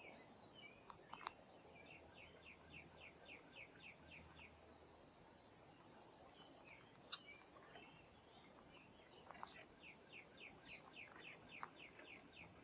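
A songbird singing a faint trill of quick, repeated downward-sliding notes, about five a second, twice: about 2 seconds in and again about 10 seconds in. A few sharp clicks fall between the trills.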